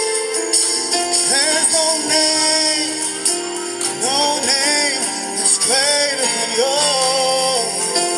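Christian worship-song music: a melody with vibrato over sustained chords, with a tambourine jingling.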